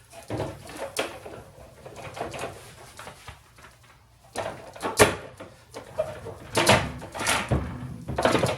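Irregular knocks, clatters and squeaks of plastic drink bottles and shelves being moved around inside a mini fridge, with sharper knocks about five seconds in and toward the end.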